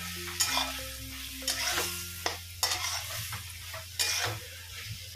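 A spatula scraping and stirring soya chunk masala in a pan, the freshly added water sizzling around it. The scrapes come every half second to a second.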